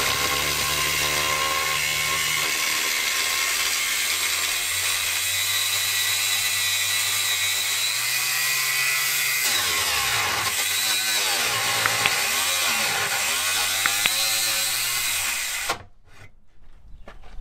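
Handheld electric power tool cutting openings through a coach's side bodywork panel, running steadily with its pitch wavering under load. It stops abruptly a couple of seconds before the end.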